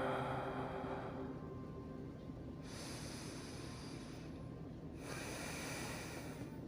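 A person breathing slowly and deeply, as in sleep: three long, soft breaths of air, each lasting about one and a half to two seconds, the second and third following each other closely from about the middle.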